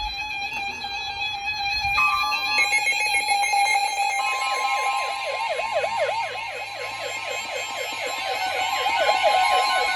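Weather-radio alert alarms sounding together: a steady electronic alarm tone, then about four seconds in the NOAA Weather Radio warning tone, steady and a little higher, joined by a fast-warbling, siren-like alarm. This signals the start of a tornado warning broadcast.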